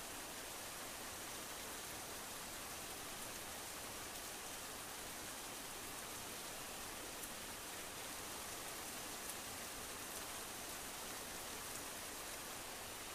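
Steady, even hiss with a few faint ticks in the second half.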